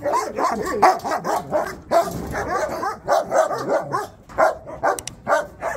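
German Shepherd dogs barking over and over in rapid, overlapping barks, with whines mixed in.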